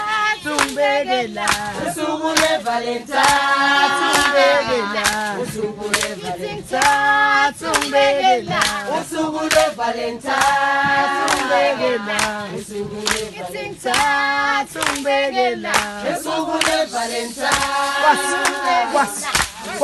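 A choir singing in harmony over a steady beat of sharp hand claps.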